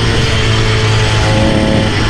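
Small engine of a motorised bicycle kit running steadily at riding speed, with background music mixed over it.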